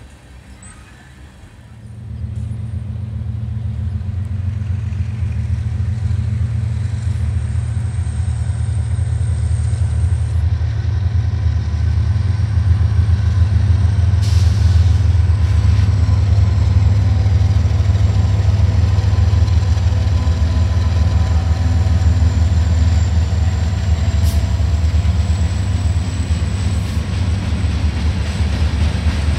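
Union Pacific diesel-electric freight locomotives running in a multi-unit consist as the train approaches and passes. A loud, steady low engine drone starts abruptly about two seconds in and slowly builds.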